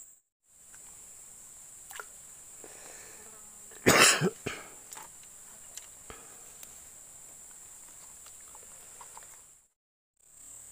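Steady high-pitched insect drone from the riverside vegetation, with one short, loud cough about four seconds in and a few faint ticks.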